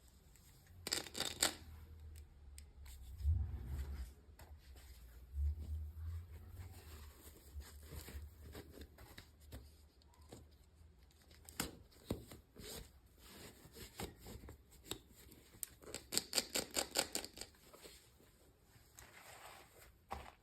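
Toy packaging being opened by hand: scattered rustling, tearing and snipping, with a quick run of sharp clicks about sixteen seconds in.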